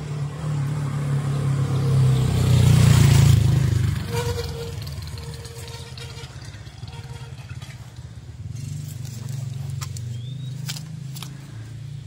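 A motorcycle passing by, its engine growing louder to a peak about three seconds in and then fading away.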